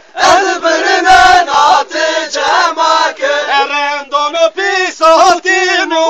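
Male voices singing a Zazaki halay dance song in a chanting style, with a few strong beats in the first two seconds.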